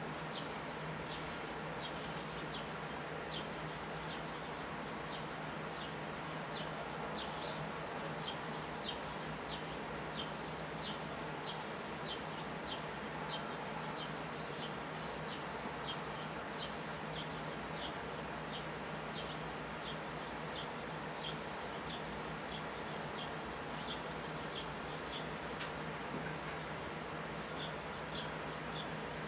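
Sparrows chirping continually, a running series of short high chirps, over a steady low background hum.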